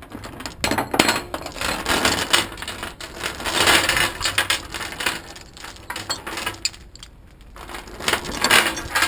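Steel tie-down chains with their hooks and binders rattling and clanking as they are gathered and dragged over a steel trailer deck, in several spells of jangling with a quieter lull about seven seconds in.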